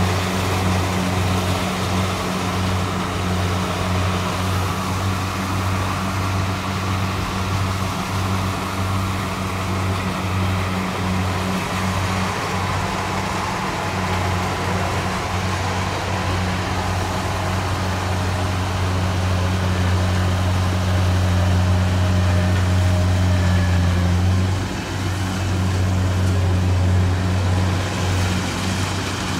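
Kubota DC70 combine harvester's diesel engine running at a steady, even drone, with a brief dip about 25 seconds in.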